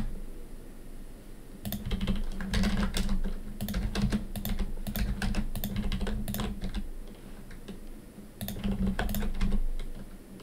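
Computer keyboard keys tapped irregularly as Blender shortcuts, in two flurries of clicks, the first about one and a half seconds in and the second near the end.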